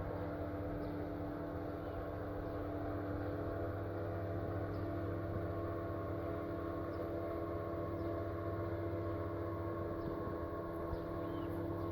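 A steady engine drone holding one constant pitch, with a few faint short high chirps over it.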